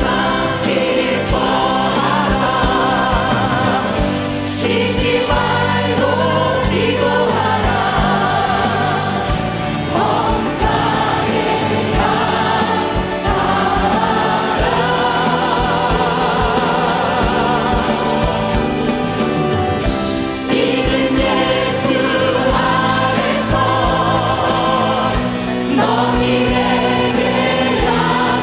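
Church choir singing a gospel hymn with vibrato on held notes, backed by a band with bass and a steady drum beat.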